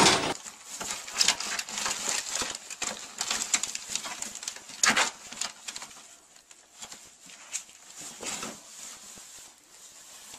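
A ferret scrabbling and tugging a cloth out of a plastic bin and across a carpet: irregular clicks, scuffles and cloth rustling, louder in the first half and fading toward the end.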